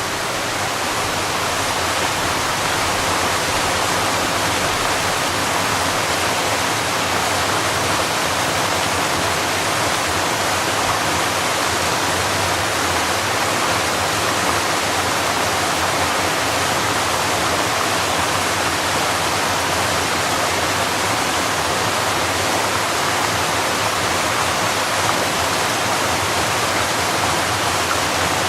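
Creek water rushing and splashing steadily over a low stone wall, a small cascade.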